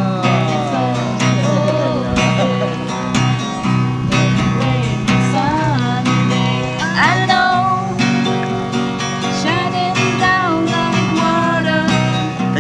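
Acoustic guitar strummed and picked, with a voice singing along.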